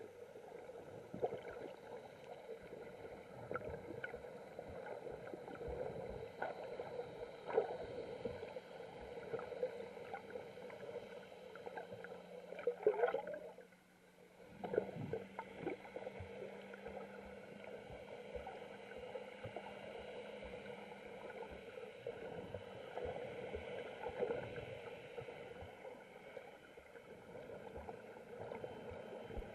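Muffled underwater ambience recorded with the camera submerged: a steady hum of water noise with scattered small clicks and sloshes. The sound drops out briefly about halfway through, then a low steady drone joins it for several seconds.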